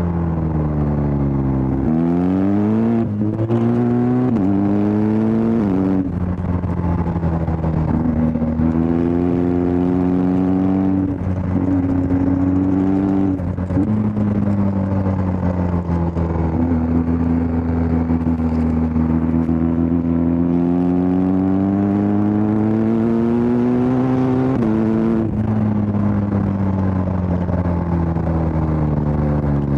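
BMW R1250 GS Adventure's boxer twin engine ridden hard through the gears. Revs climb and then drop sharply at three quick upshifts with the quickshifter a few seconds in, and again after longer pulls later on. Between pulls the revs fall back as the throttle eases.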